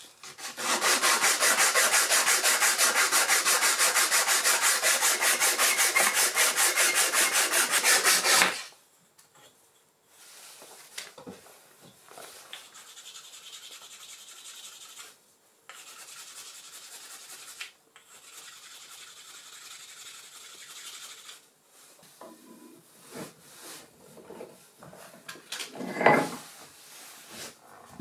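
Hand tools working a wooden dowel set in a birch benchtop: about eight seconds of loud, fast, even rasping strokes, then quieter scraping in short runs, and a few knocks, the sharpest about 26 seconds in.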